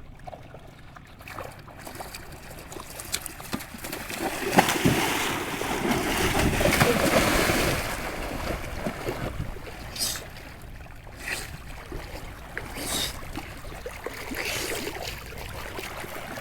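Water splashing and sloshing in a stream, building to a loud churning stretch a few seconds in, with several sharp splashes after it.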